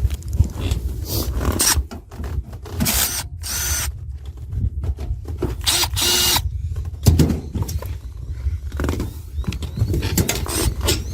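Tool and hardware handling: irregular clicks and scrapes, with two short whirring bursts, over a steady low rumble.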